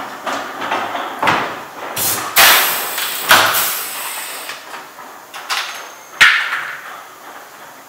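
Pneumatic pop-rivet gun setting large-flange rivets into a portable restroom's roof: several sharp snaps, each trailing off in a hiss of air.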